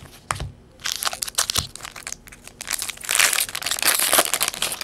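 Foil trading-card pack torn open and crinkled by hand, the crackle loudest about three to four seconds in, after a couple of sharp clicks.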